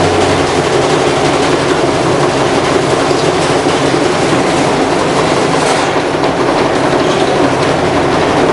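A brick tumbling inside a running washing machine's drum: a loud, continuous rattling and knocking.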